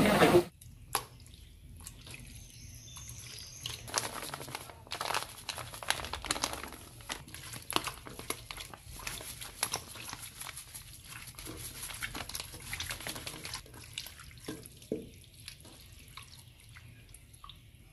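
Hands kneading and rubbing raw squid in a plastic colander: irregular wet squishing and clicking, thinning out about fifteen seconds in.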